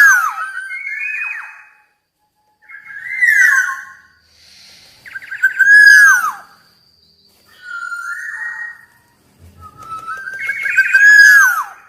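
Black-naped oriole calling: a run of about five loud call phrases with short gaps between them, each ending in a quick downward slide in pitch.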